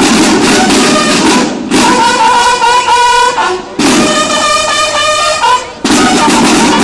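Banda de guerra drum and bugle corps: snare drums play a driving cadence, then about two seconds in the bugles sound two held chords with a brief drum burst between them, and the snare drums come back in near the end.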